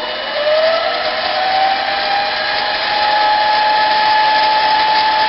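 Harbor Freight 7x10 mini metal lathe running forward, its motor and spindle whine rising in pitch over the first two or three seconds as the speed is turned up toward about 600 RPM, then holding steady.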